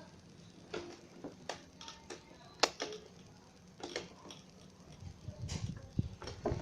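Scattered sharp clicks and taps of small plastic pieces from a toy make-up set being handled, with some low handling rumble near the end.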